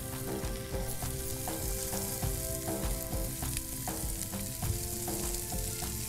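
Sweet corn kernels with chilli powder and spices frying in a pan over a gas flame: a steady sizzle.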